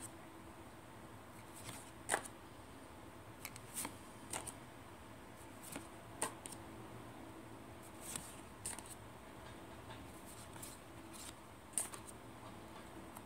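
Paper-stock tarot cards slid one at a time off a hand-held deck: soft, short papery flicks and scrapes about every second or so.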